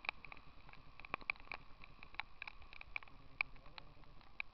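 Raindrops ticking irregularly on a hard surface close to the microphone: sharp separate taps, about five a second, with no steady rhythm.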